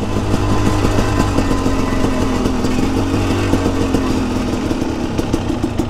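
KTM 300 two-stroke motorcycle engine running at a fairly steady speed while the bike rides through flood water, with a steady rushing hiss over the engine note.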